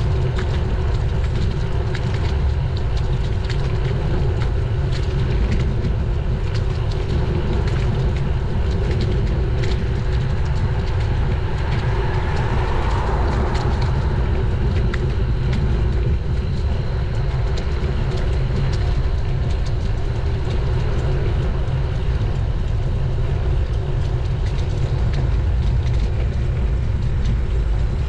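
Wind buffeting a bicycle-mounted camera's microphone while riding: a loud, steady low rumble, with a brief rise in mid-range noise about halfway through.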